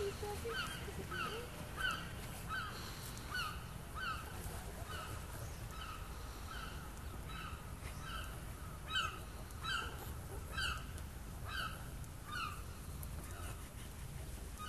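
River otters giving a run of short chirping calls, about two a second, each a quick pitched squeak with overtones, falling quiet near the end. A steady low rumble lies underneath.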